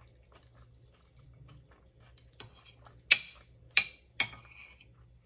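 Metal spoon clinking against a plate as food is scooped up: quiet at first, then four sharp clinks in under two seconds, starting a little past the middle.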